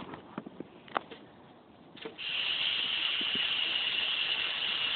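Softball toss machine, pushed down and timing its release, giving a steady high hissing whir from about two seconds in. A sharp crack comes at the very end, as the ball is hit.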